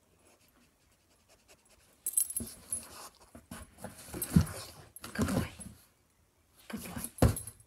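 A dog sniffing and panting with its nose in a cardboard box, in a run of short huffs that starts about two seconds in.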